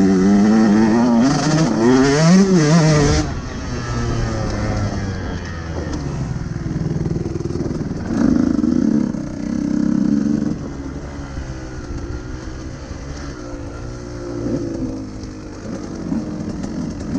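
KTM 150 SX two-stroke single-cylinder engine being revved hard, its pitch wavering up and down for the first three seconds, then running lower and quieter, with another brief burst of throttle about eight seconds in.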